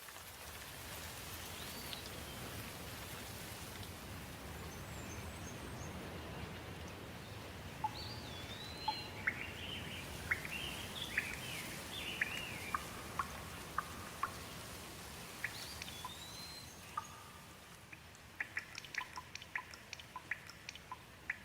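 Steady rain with songbirds singing: a string of whistled, swooping phrases in the middle, then a patter of close, sharp drips near the end.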